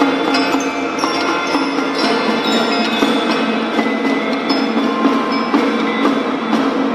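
Marching drum band playing, led by its mallet percussion: bell-like keyboard notes struck in quick succession and ringing on over one another.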